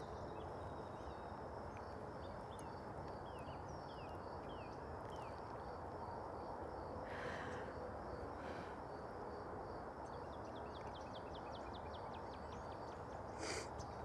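Outdoor ambience over a steady background hiss, with birds calling: several short falling chirps in the first few seconds and a fast trill near the end. A high chirp repeats about three times a second throughout.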